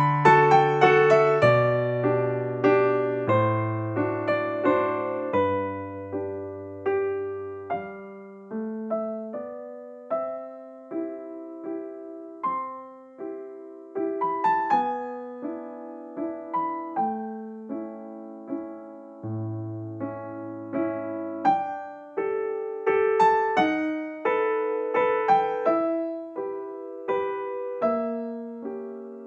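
Background piano music: a gentle melody of struck notes over a slow bass line.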